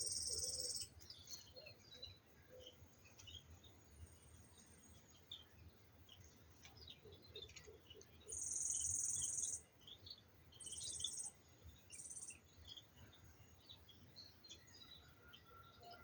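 Birds chirping and calling in the countryside. The loudest sounds are high, buzzy trills: one at the start, then three close together past the middle, the first lasting just over a second.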